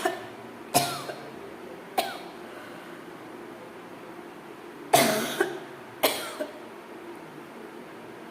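A person coughing deliberately in short, sharp single coughs: a few about a second apart, a pause of about three seconds, then two more, each with a smaller cough right after.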